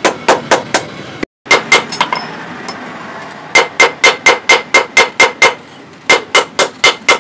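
Hammer striking the homemade steel anvil in steady runs of about four blows a second, each blow with a bright metallic ring. The sound drops out briefly after the first few blows.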